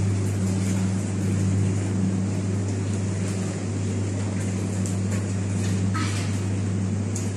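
Jacuzzi tub's jet pump running with a steady low hum, water bubbling and churning through the jets.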